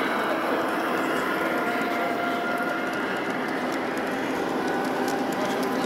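LGB G-scale model train, a DR class 132 diesel locomotive model hauling passenger coaches, rolling steadily along the track with a faint whine.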